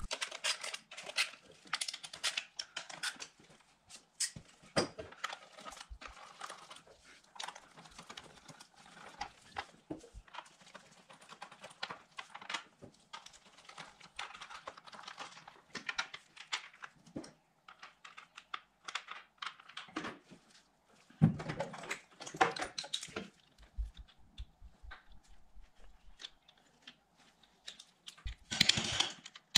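Hand tools and small metal parts being handled at a motorcycle's front sprocket: irregular light clicks, taps and clatter, with a heavier clattering burst about two-thirds of the way through and a dense rattle near the end.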